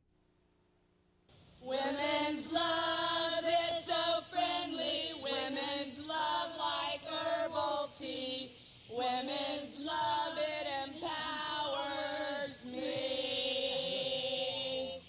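Unaccompanied female singing, a cappella, a sung melody that starts about a second in and breaks off briefly about halfway through.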